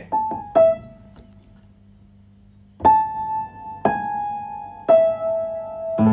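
Piano playing a slow melody of single notes that ring on, each about a second apart, with a gap of about two seconds after the first few; fuller chords come in right at the end.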